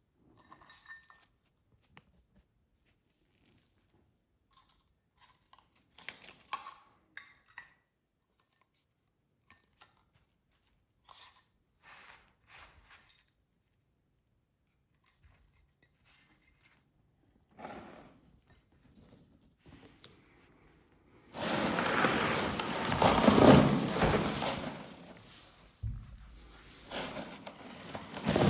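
Light clicks and taps of items being handled, then, about 21 seconds in, loud sustained rustling and tearing of packaging that dies down and starts again near the end.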